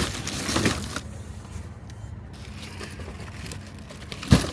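A car's engine running with a steady low hum, with rustling early on and a single sharp thump near the end.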